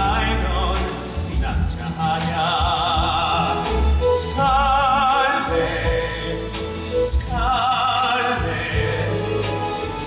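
A man singing a slow musical theatre song live, holding long notes with wide vibrato over instrumental accompaniment.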